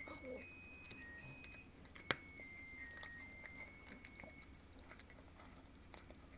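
A cat at its food dish: faint scattered clicks and clinks, with one sharp click about two seconds in. Faint high-pitched steady tones sound in the background.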